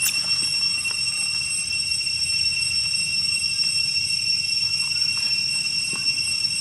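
Steady high-pitched ringing of a night insect chorus at several pitches, unbroken, over a low steady rumble, with a few faint clicks.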